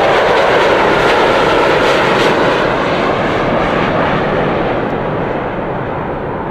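Airplane taking off: a loud, steady engine roar that grows duller and fades gradually in the second half as the aircraft climbs away.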